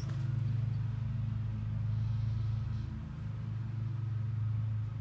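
Steady low mechanical hum, like a motor running, swelling gently and slowly in loudness.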